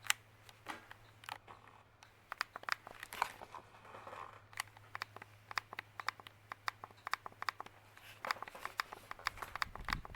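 Irregular small clicks, ticks and rustles of hands handling small metal fan hardware while a cotter pin is fitted, over a faint steady low hum.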